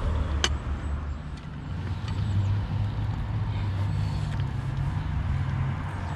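A low engine drone runs throughout and steps up in pitch about two seconds in. About half a second in there is one sharp metal clink from the hinged sandwich-toaster pan as it is opened.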